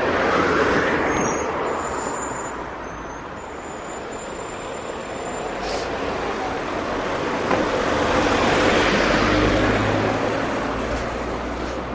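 Street traffic passing close by: the noise of vehicles swells and fades, loudest about a second in and again around eight to nine seconds, with a low hum under the second pass.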